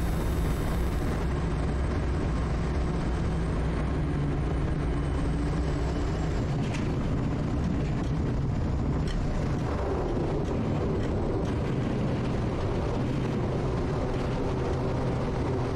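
Quest Kodiak's PT6A turboprop engine and propeller droning steadily through the landing. The tone changes about six seconds in, and a few light knocks follow.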